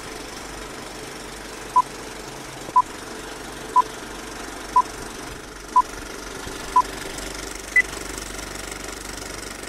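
Film-leader countdown beeps: six short identical beeps one second apart, then a seventh, higher-pitched beep. They sound over the steady clatter of a running film projector.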